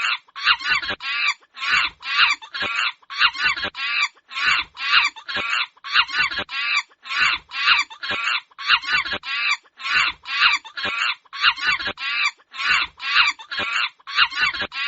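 Monkeys screaming: short, shrill calls in quick groups of three or four, repeating over and over without a break.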